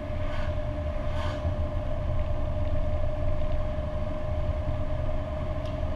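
Lancia Delta HF Turbo heard from inside the cabin while cruising at a steady speed: an even engine drone over low road and tyre rumble.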